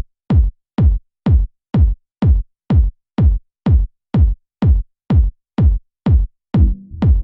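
Techno track intro: a lone drum-machine kick drum on a steady four-on-the-floor beat, about two kicks a second, each kick a short boom that drops in pitch. Near the end a low sustained bass and synth layer comes in between the kicks.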